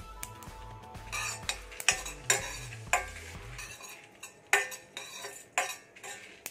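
Steel spoon scraping and clinking against a stainless steel pan, stirring dry-roasting sesame seeds, urad dal and dried red chillies. The strokes are irregular and start about a second in.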